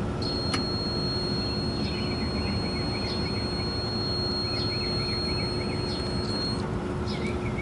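Multimeter continuity beeper sounding a steady high tone, the sign of a closed circuit across the test leads; it cuts off about six and a half seconds in. Beneath it runs a steady low hum, with a few faint bird chirps.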